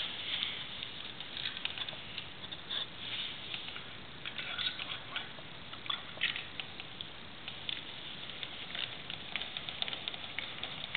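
Small irregular clicks, scrapes and rustles of hands handling wires and a screwdriver in a flush-mounted electrical wall box.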